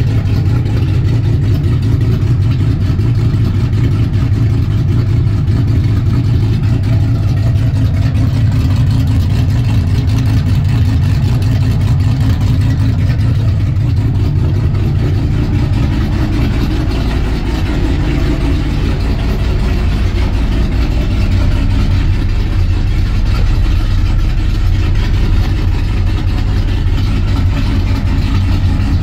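Dodge Ram pickup's V8 with an aggressive aftermarket cam idling steadily through its exhaust, a loud, deep rumble that the owner says shakes the whole truck.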